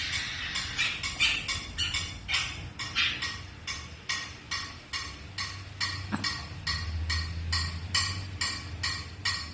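A steady run of short, sharp clicks or taps, about three a second, like a spoon tapping in rhythm.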